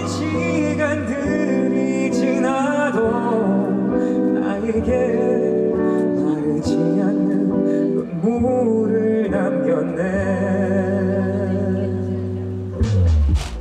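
Male singer performing a gentle song to guitar accompaniment, with a low thump about a second before the end.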